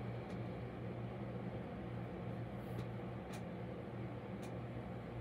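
Steady low background hum, with a few faint, brief rustles as a piece of cross-stitch fabric is unfolded and handled.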